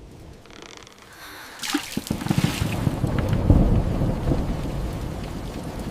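A thunderclap: a sharp crack about two seconds in, then a heavy rumble that builds, peaks and slowly fades, over steady rain.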